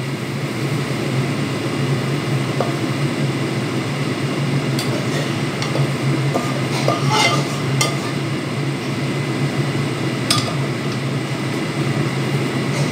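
Kitchen utensil clinking and scraping against a cooking pan a few times, over a steady low hum.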